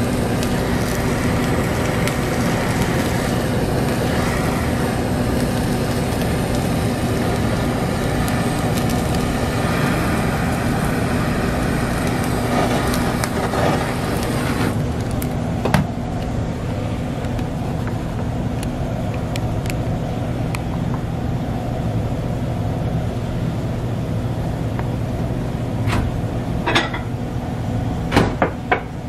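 Handheld butane blowtorch running with a steady hiss as it sears the fish on sushi, cutting off about halfway through. A low steady hum continues underneath, with a few sharp clicks and knocks near the end.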